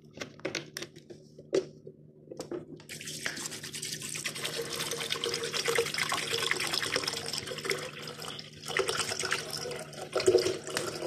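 Water being poured into a blender jar over chopped beetroot and ginger, a steady splashing rush that starts about three seconds in, after a few light knocks.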